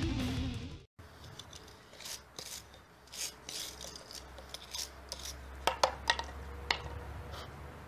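Steel wire brush scrubbing flame-charred wood, brushing off the loose char after flaming: quick, irregular scratchy strokes with a few sharper knocks a little past the middle. Background music fades out in the first second.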